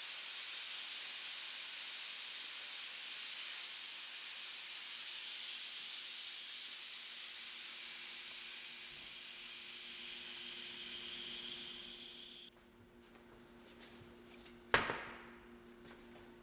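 Air hissing out of a car tyre through the valve stem with its core removed. The hiss is steady at first, then fades and drops in pitch, stopping about twelve seconds in as the tyre runs flat. A single sharp knock follows near the end.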